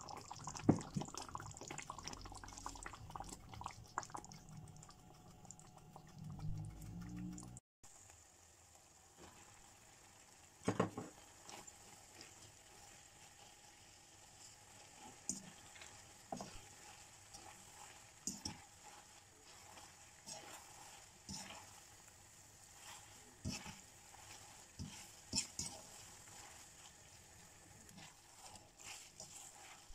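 Tomato and seafood sauce simmering and bubbling in a frying pan. After a sudden cut, a serving utensil tosses spaghetti through the sauce, giving soft stirring noises and occasional sharp taps and scrapes against the pan.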